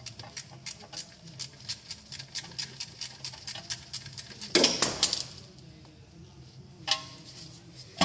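Ratchet wrench clicking fast and evenly, about five or six clicks a second, as a crankshaft pulley bolt is backed out. A little past halfway there is a louder metallic clatter, and one more sharp click comes near the end.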